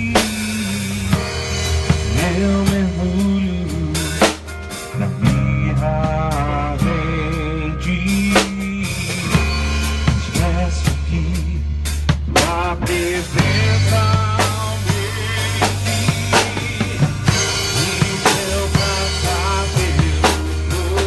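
Instrumental passage of a worship song played by a band: drum kit with kick, snare and rimshots over held bass notes that change every few seconds, and a wavering lead melody.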